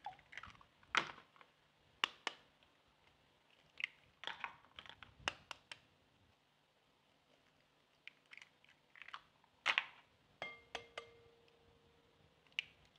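Eggs being cracked one after another into a mixing bowl: faint, sharp taps and cracks of shell in a few separate clusters. A brief ringing tone sounds about ten and a half seconds in.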